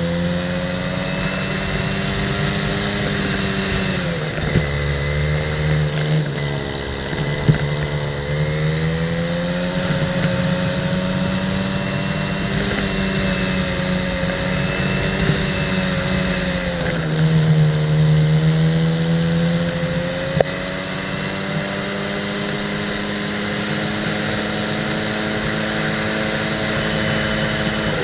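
Racing go-kart engine heard from on board, running hard throughout, its pitch dipping twice, about four seconds in and again around seventeen seconds, and climbing back up as it accelerates. A steady hiss lies underneath, with a few brief clicks.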